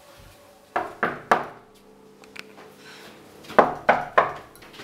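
Knocking on a wooden door: three quick raps, then about two seconds later three more.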